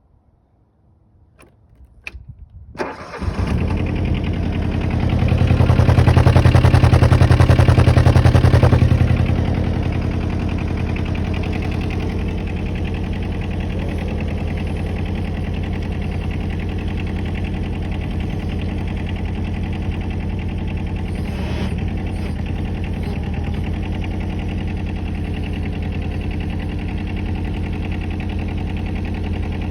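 Kobelco SK09 mini excavator's diesel engine starting: a few clicks, then it catches about three seconds in, runs at higher revs for several seconds, and settles to a steady idle.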